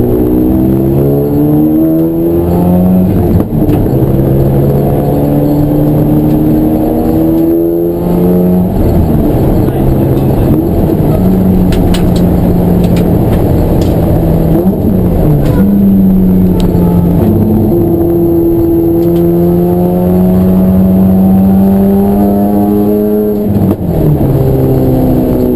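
Race car engine pulling through the gears: the revs climb steadily, then drop sharply at each gear change, several times over, with a cluster of drops about eight seconds in.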